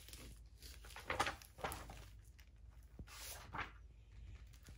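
Pages of a large hardcover picture book being opened and turned: several short paper swishes and rustles.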